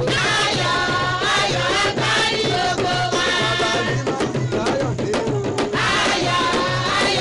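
Yoruba praise song of joy sung over a steady drum beat, about two beats a second.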